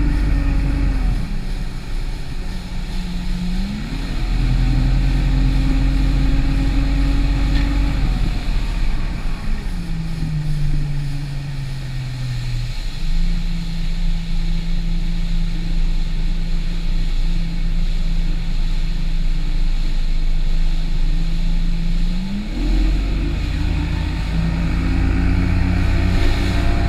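Outboard motor of a fishing boat running under way, its pitch rising and falling several times as the throttle changes, with a low rumble and rushing noise underneath.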